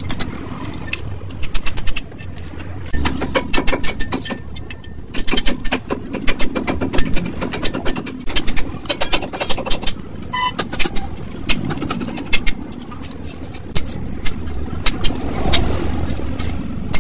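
Steel punch driven with hammer blows to knock out the rivets holding the lining on a truck drum brake shoe: sharp metallic strikes in quick runs, several a second, with short pauses between, over a steady low rumble.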